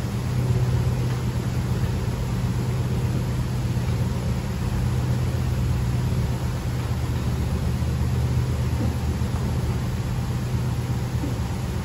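Bulgur sieving machine running steadily: a constant motor hum under an even rushing noise as cracked wheat pours through the screens and out of the chutes.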